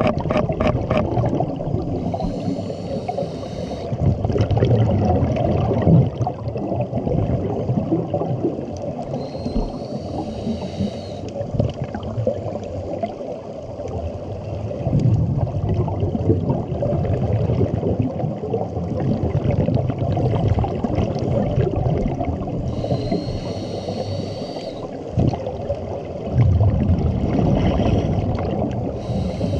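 Scuba regulator breathing underwater: a few hissing inhales, each with a faint thin whistle, every several seconds, each followed by a gurgling rumble of exhaled bubbles, over a steady low underwater rumble. A run of quick clicks at the start.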